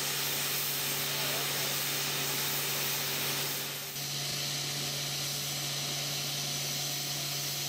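Steady hiss of steam escaping from the standing LMS Princess Coronation class Pacific steam locomotive 46233 Duchess of Sutherland, with a steady low hum beneath it. The sound dips briefly about four seconds in.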